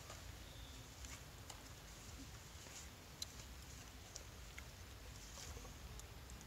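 Faint, scattered crackles and clicks of an empty plastic water bottle being handled and chewed at the cap by a young macaque, with one sharper click about three seconds in.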